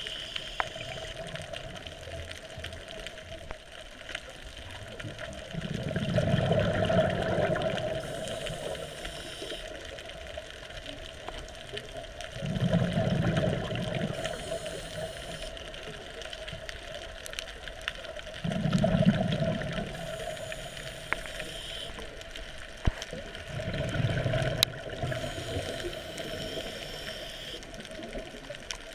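Scuba diver breathing through a regulator underwater: a low rumble of exhaled bubbles four times, about every six seconds, each followed by the short hiss of an inhalation.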